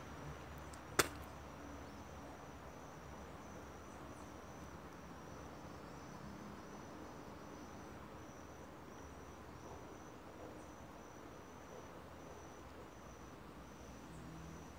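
An insect calling in a steady, evenly pulsing high-pitched trill over faint background hiss, with one sharp click about a second in.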